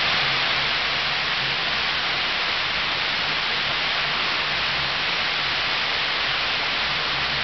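Water overflowing a reservoir dam's concrete spillway and falling into the pool at its foot: a loud, steady rush.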